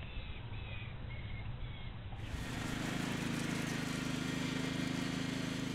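Short high chirps, about two a second, then from about two seconds in the steady, louder drone of a riding lawn mower's engine running.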